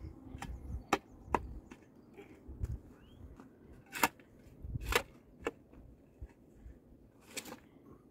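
Long-handled shovel digging stony soil: irregular sharp clinks and scrapes as the blade strikes earth and stones, the loudest about four and five seconds in.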